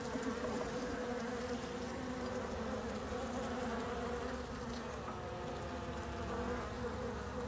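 Honey bees buzzing in a steady hum over an open hive.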